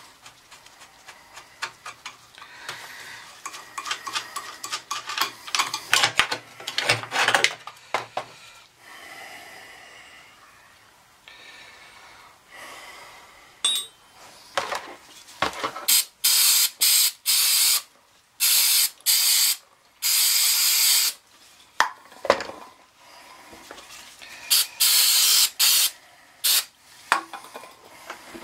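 Metal burner parts and tools clicking and rattling as an oil burner is taken apart. In the second half comes a series of short hissing bursts from an aerosol cleaner can, about a dozen, one held for about a second, cleaning the dirty burner parts.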